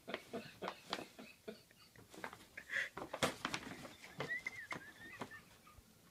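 Paper gift bag crackling and rustling in irregular bursts as a kitten wrestles with it and pushes into it.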